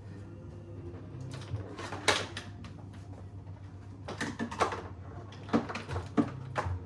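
Irregular knocks and clatter of light hard objects, a few sharp ones and a quick cluster about four seconds in, over a low steady hum.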